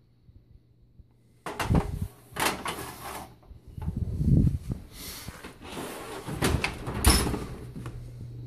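Knocks and clatters of a metal baking sheet being set down on the cast iron grates of a gas stove, starting about a second and a half in, with the loudest knock near the end.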